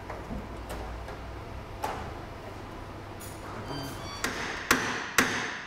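A hammer striking metal about two blows a second, starting about four seconds in, each blow with a short ring. It is knocking at a seized rear track-arm bolt on a Porsche Boxster. Before that, a light metallic click and a few faint clinks of tools.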